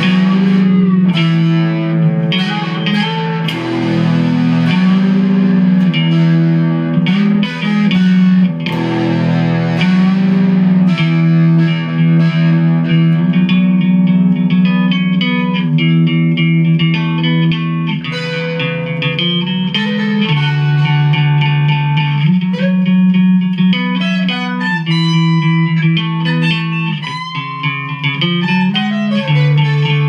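Instrumental guitar music: plucked electric guitar notes with effects over held low chords that change every couple of seconds.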